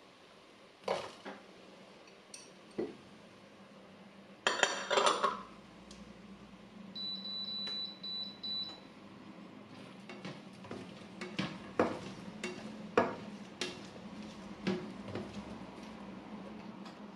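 Chopped green chillies and curry leaves clatter into a ceramic-coated frying pan of onions about four and a half seconds in. A spatula then knocks and scrapes against the pan in quick repeated strokes as the mix is stirred. A thin high tone sounds briefly in between.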